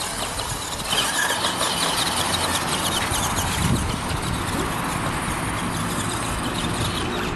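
Electric motor and gears of an ECX 2WD RC stadium truck whining as it drives across grass, growing louder about a second in.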